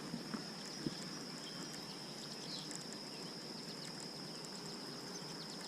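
A steady high-pitched whine over faint outdoor background noise, with a few light clicks in the first second.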